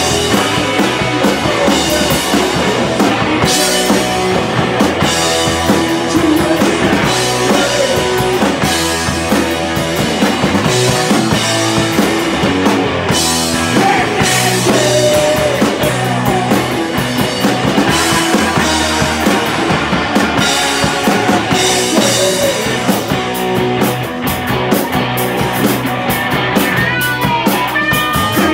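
Rock band playing live, loud and continuous: drum kit and guitars.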